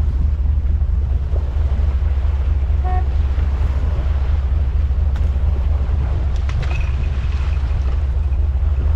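Fishing boat's engine running with a steady low drone, mixed with wind on the microphone and sea water washing against the hull. A short beep sounds about three seconds in.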